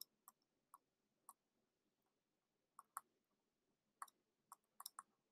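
Faint, scattered clicks of a stylus tapping a tablet screen while handwriting, bunched more closely near the end, over near silence.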